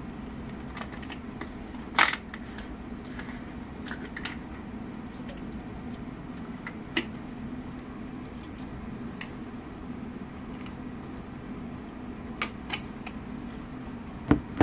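Scattered short clicks and taps, the loudest about two seconds in and another near the end, over a steady low hum.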